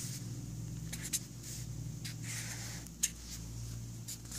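Marker pen writing on paper: a run of short, irregular scratching strokes with brief pauses between them, over a steady low hum.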